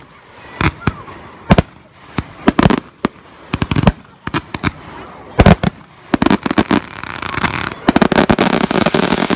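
Fireworks display: aerial shells bursting as sharp bangs about once a second, then from about six seconds in a dense run of rapid bangs and crackling that builds into a barrage.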